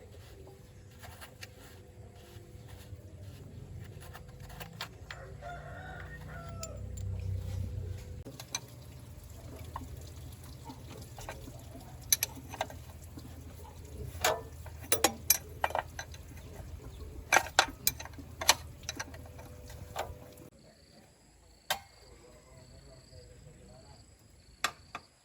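A rooster crows once, about six seconds in, over a steady low machine hum. Sharp knocks come in a cluster later on, and the hum cuts off near the end, leaving faint high chirps like insects.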